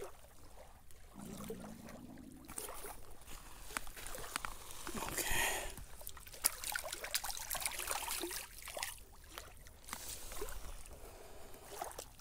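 Small splashes and sloshing of shallow lake water as a small largemouth bass is let go by hand at the shoreline and swims off, the loudest splash about five seconds in, with scattered light knocks from handling.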